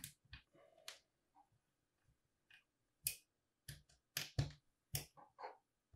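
Faint, scattered light clicks and taps of small metal parts being handled as the rotator's drive shaft and bearing blocks are fitted back in place, a few of them duller knocks.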